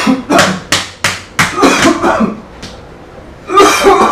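A man coughing and gagging in a staged choking fit while another slaps him on the back. About five sharp slaps and coughs come in quick succession in the first two seconds, and a louder cough or cry follows near the end.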